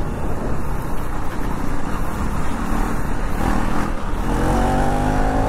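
KTM Duke 390 Gen3 single-cylinder engine, still on its stock exhaust, running hard while the bike is ridden, under a constant rushing noise. The engine pitch climbs slowly near the end as the bike speeds up.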